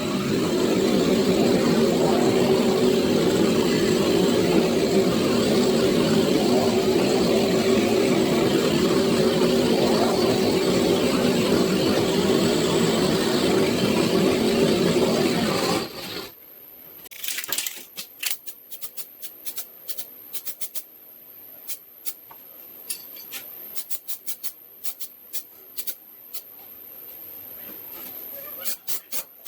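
A power tool runs steadily and loudly, then stops abruptly about sixteen seconds in. Scattered light clicks and taps follow, as of small metal parts being handled.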